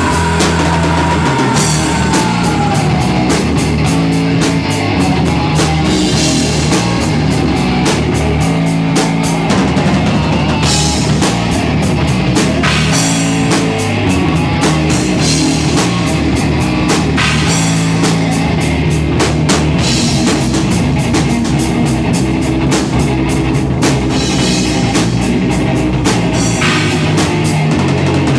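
Live rock band playing a hard, fast song: electric guitar over a busy drum kit, with rapid drum and cymbal hits, at a steady loud level.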